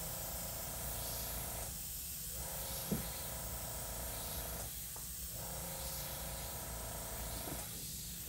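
Airbrush hissing as it sprays a series of short dagger strokes of paint. The air note dips briefly between strokes, about two, five and eight seconds in, and a small sharp click sounds about three seconds in.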